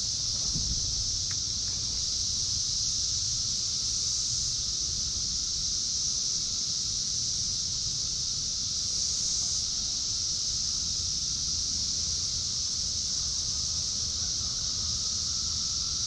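Chorus of Brood X periodical cicadas: a steady, high-pitched buzz that never lets up, with a fainter lower drone beneath it. Light wind rumble on the microphone.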